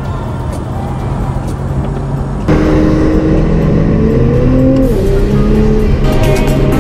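Nissan GT-R R35's twin-turbo V6 heard from inside the cabin while accelerating. It gets abruptly louder about two and a half seconds in, then its pitch rises and drops sharply at an upshift near five seconds in.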